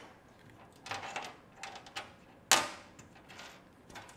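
Handling noises as a gasket is laid on a cast iron Pontiac cylinder head: a few light clicks and rustles, then one sharp knock about two and a half seconds in, and a faint tap near the end.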